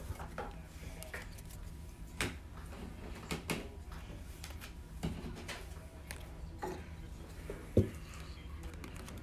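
Scattered light clicks and rustles of trading cards and plastic card holders being handled, with a sharper knock near the end as a card holder is set down on the shelf.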